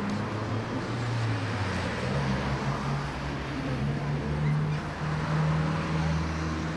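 Street traffic: car engines running and passing by close, over a steady city background noise.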